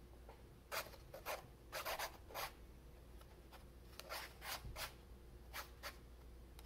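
Metal ruling pen loaded with fountain pen ink scratching across paper in short, quick strokes, about a dozen scrapes in two groups with a short pause between.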